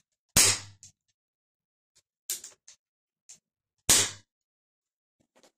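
Two shots from a Crosman 2400-series HPA air pistol about three and a half seconds apart, with a few softer clicks between them: the gun fired with its air supply shut off to bleed out the remaining air.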